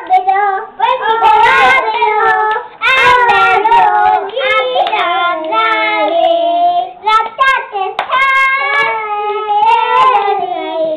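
Two small girls singing a song together, clapping their hands along with it.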